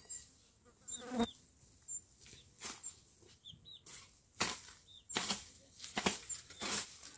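Leafy plants rustling and stems snapping in irregular short scrapes, one or two a second, as herbs are picked by hand. Small high bird chirps sound in between.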